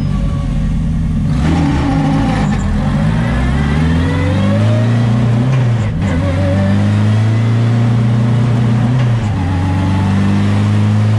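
Car engine accelerating, heard from inside the cabin: the revs climb over the first few seconds, dip briefly about six seconds in, then the engine pulls steadily.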